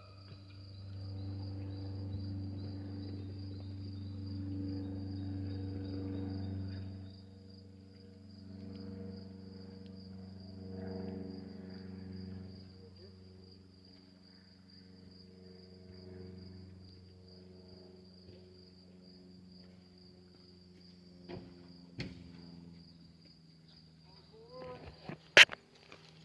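Insects trilling in one steady high drone, over a low steady hum that is loudest for the first several seconds and then fades. A few sharp clicks near the end.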